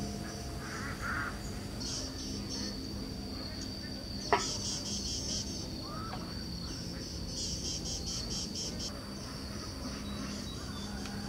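Insects trilling steadily, with groups of rapid pulsing chirps coming and going. A single sharp knock about four seconds in.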